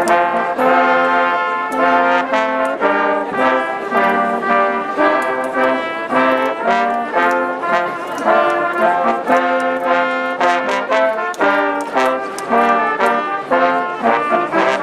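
Brass band playing a tune: several brass instruments sounding chords together, the notes changing in a steady rhythm.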